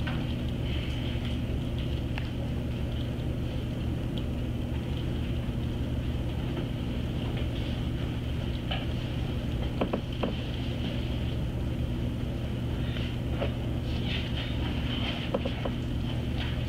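Steady machine hum of room tone, with a low drone and a faint higher whine, and a few faint clicks scattered through it.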